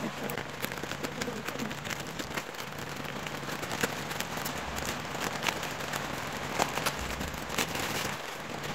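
Black plastic shipping bag crinkling and rustling with many irregular sharp crackles as it is cut open with scissors and pulled off a cardboard box.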